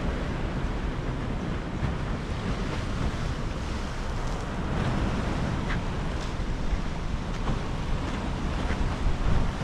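Sea surf washing on the shore, a steady rushing noise, with wind buffeting the microphone.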